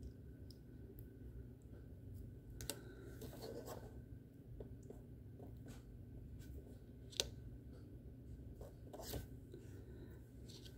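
Faint scratching and rubbing, with a few short sharp clicks, the loudest about seven seconds in: fingers handling a small item and its packaging.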